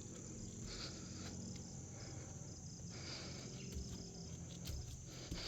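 Faint steady chorus of insects chirping in rapid even pulses, with a low rumble and a few soft thumps underneath.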